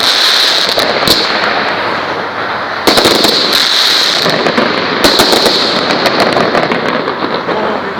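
Fireworks cake firing in a continuous barrage of bangs and dense crackling, with fresh loud bursts about a second in, about three seconds in and about five seconds in, then slowly dying down.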